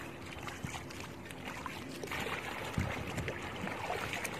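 Wading through shallow marsh water, then swishing and splashing near the end as a woven bamboo dig-net basket is pushed down into the water, with a soft thump about two-thirds of the way in.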